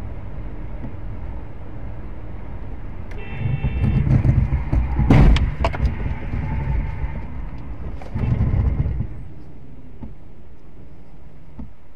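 Car on the move, its engine and road noise a steady low rumble. A brief high-pitched sound comes a little after three seconds in, the rumble swells, and a sharp bang comes about five seconds in, typical of a collision.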